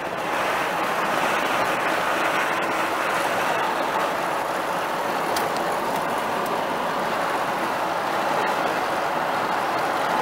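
Steady road and engine noise heard from inside a vehicle's cabin cruising at highway speed.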